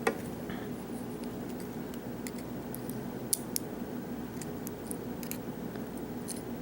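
Scattered faint metallic clicks and ticks of small tools working a pin out of a lock's pin chamber, over a steady low hum.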